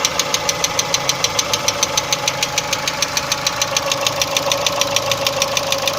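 Chevrolet Cruze 1.6 four-cylinder petrol engine idling with a sharp, even knock, about six a second. This is the engine knock the owner is recording.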